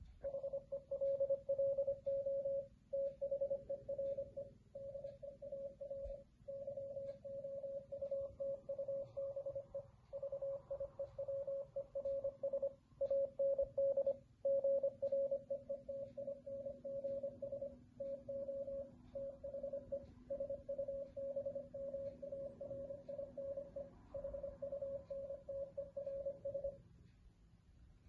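Morse code beeps from a smartphone's GGMorse app: a single tone of about 550 Hz keyed on and off at 25 words per minute, spelling out "HELLO THERE DEAR YOUTUBE VIEWERS AND GREETINGS TO THE SUBMARINE HUNTERS". The keying stops about a second before the end.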